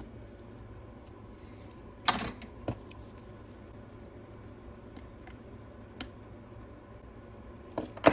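Scattered small clicks and taps of hand tools working on the opened iPad Pro's internal parts, the sharpest about two seconds in and another right at the end, over a faint steady hum.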